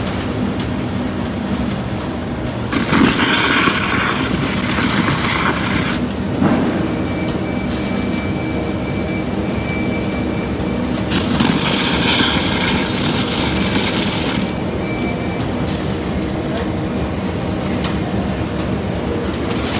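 FPE industrial meat grinder running with a steady motor hum. Twice, for about three seconds each, a loud rushing noise rises over the hum.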